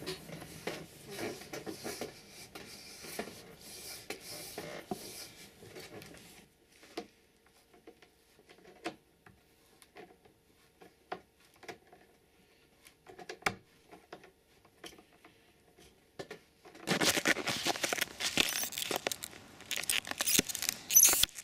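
Hands working a cross-country ski binding on the ski: rustling and scraping as the plate is pressed down, then scattered small clicks and taps as it is worked with a screwdriver. About two-thirds of the way in, a loud, dense crunching and crackling takes over, as a boot in snow is clipped into the binding.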